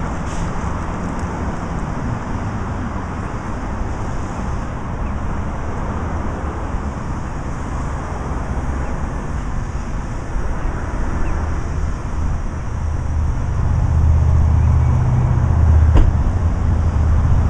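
Steady road traffic noise, with a low engine rumble growing louder over the last few seconds as a vehicle approaches. A single sharp click near the end.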